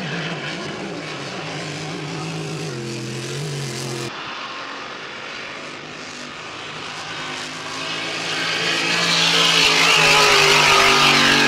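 Grand Prix class racing hydroplane's engine running hard through a turn, then climbing in pitch and getting louder as the boat accelerates down the straight, with a rising hiss near the end.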